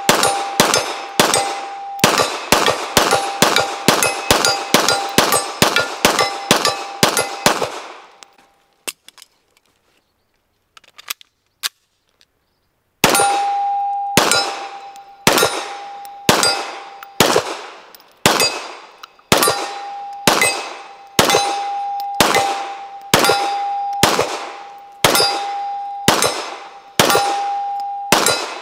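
Pistol fire from a SIG P320 at steel targets, with many shots answered by the steel plate ringing. A fast string of shots runs for about eight seconds. After a pause of about five seconds with a few faint clicks, the firing resumes at a steadier pace, about one shot a second.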